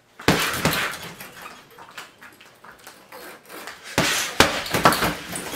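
Gloved punches thudding into a hanging Everlast heavy bag: two quick strikes near the start, then a rapid flurry of four or five about four seconds in.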